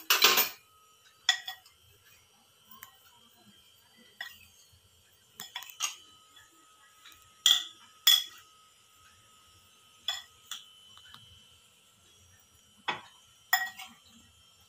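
Steel spoon clinking against a glass bowl and a steel plate while coconut filling is scooped out and spread on dough: about ten sharp, ringing clinks at irregular intervals.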